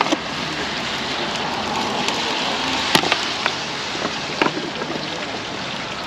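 Steady rain pattering on surfaces, with a few sharp light clicks over it.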